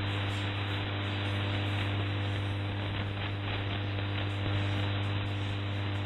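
Shortwave AM broadcast received on a software-defined radio, carrying no programme audio: a steady static hiss over a strong, constant low hum.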